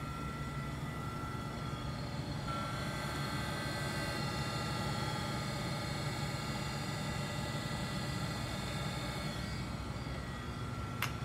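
Mitsui MSG-200 6x12 surface grinder running with its grinding wheel spinning: a steady hum with several thin, steady high tones above it. A single sharp click near the end.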